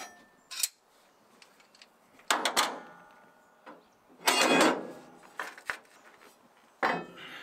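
Steel plate clanking and scraping against steel framework and tools as it is handled and set into place, in about five short bursts.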